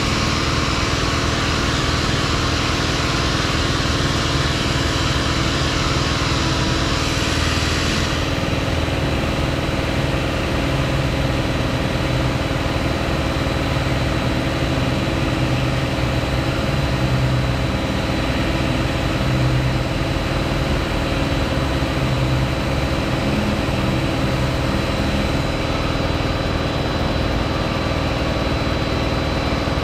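Air-powered orbital sander running steadily, sanding body filler on a bus's corner panel, with a dust-extraction vacuum humming along. About eight seconds in the higher hiss drops back while the steady hum carries on.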